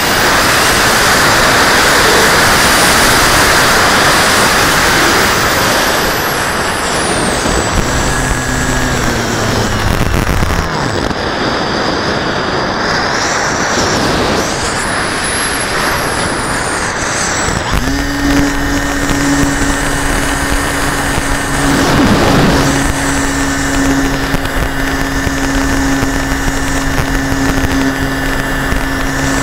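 Motor and propeller of an FPV radio-controlled model airplane, heard through the onboard camera's microphone under heavy wind rush. The motor's pitch rises and falls with throttle and manoeuvres, then settles into a steady hum a little past the middle.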